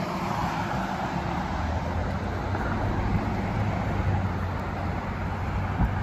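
City street traffic: a steady rush of cars passing on a multi-lane road, with a low engine hum underneath.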